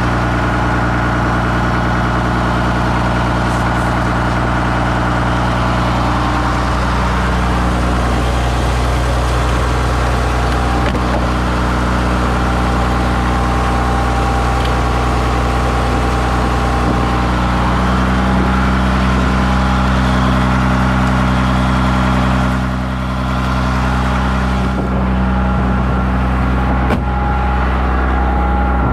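An engine idling steadily, a constant low hum with a brief dip in level about 23 seconds in.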